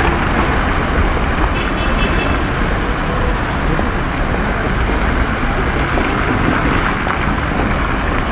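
Steady road traffic noise from cars and a van driving past through a wide city intersection.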